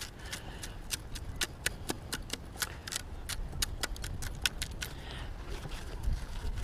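Perforated stainless steel sand scoop shaken to sift dry beach sand, the grains pouring through the holes while small stones and the find rattle against the metal in a quick, irregular run of sharp clicks. The clicking thins out after about four and a half seconds as the scoop empties.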